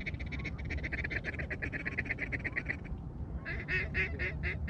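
Waterfowl calling in two fast runs of short, high, evenly spaced notes: the first quick and steady, the second louder and slower, starting after a short pause about three and a half seconds in.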